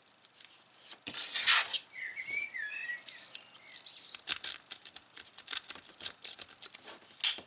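A cheap budget lock being handled and worked open: a rasping scrape about a second in, then a run of sharp metallic clicks and rattles. A short warbling chirp sounds about two seconds in.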